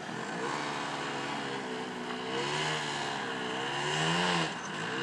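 Snowmobile engine running at high revs while skipping across open river water, its pitch rising and falling in waves. It is loudest about four seconds in, dips briefly, then climbs again near the end.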